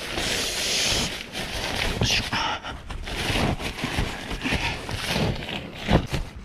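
Crumpled nylon packraft fabric rustling and crinkling as it is handled and pushed aside, with a few soft knocks, the loudest about six seconds in.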